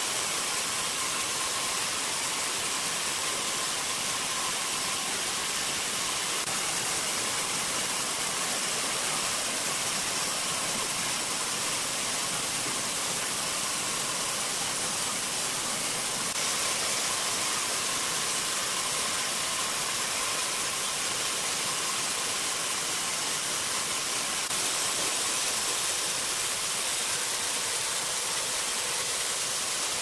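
Large horizontal band sawmill running, its blade cutting lengthwise through a big log of red incense wood with a steady hiss and a faint whine.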